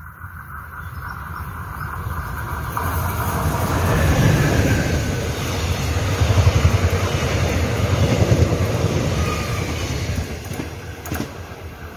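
Mugunghwa-ho passenger train passing close by, its wheels rumbling on the rails. The rumble builds over the first few seconds, is loudest in the middle, then fades as the last coaches go by.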